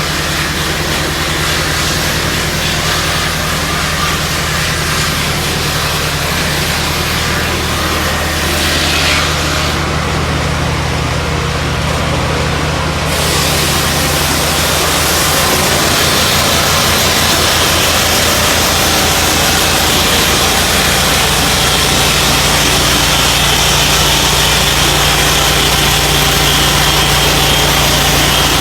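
Turbosawmill M10-22A portable sawmill's engine running steadily, growing louder from about halfway through.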